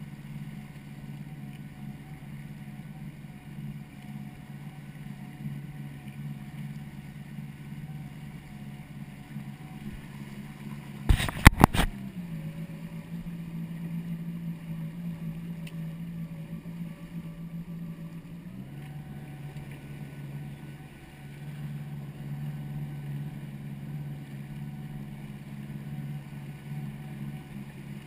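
Yamaha WaveRunner personal watercraft engine running at a low, steady throttle. Its note shifts for several seconds in the middle, and a quick cluster of four or five sharp knocks about eleven seconds in is the loudest thing heard.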